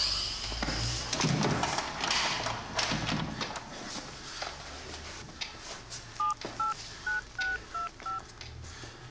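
Mobile phone keypad tones: six short dialling beeps, evenly spaced about a third of a second apart, starting a little after six seconds in, as a number is keyed in. Before them, scattered clicks and knocks.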